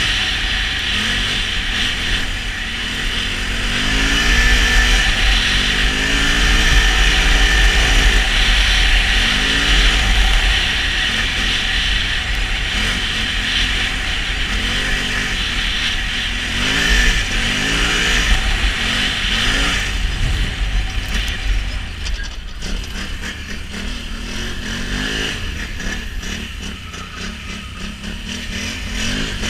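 Can-Am Renegade XMR 1000's Rotax V-twin engine revving up and down over and over as the ATV is ridden, with a steady low rumble underneath. It runs a little quieter over the last several seconds.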